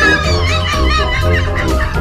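Background music with a steady beat. For the first second and a half a high, wavering warble runs over it.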